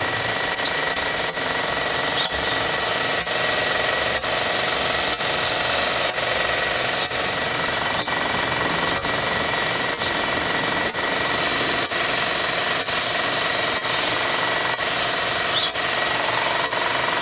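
Belt grinder running steadily while grinding brown mallee hardwood knife handle scales to shape, a constant rasping whine with a steady high tone and a light beat about once a second.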